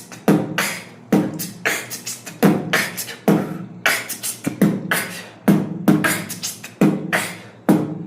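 A person beatboxing: a steady run of vocal kick-drum and snare-like hits, roughly two a second.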